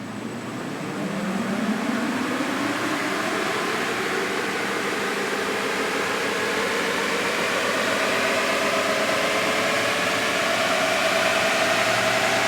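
A car engine speeding up gradually, its pitch climbing slowly for several seconds, over a steady hiss.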